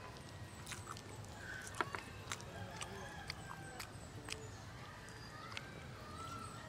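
Close-up eating sounds: chewing and wet lip smacks, scattered clicks and pops as tender pork rib meat is pulled apart by hand and eaten.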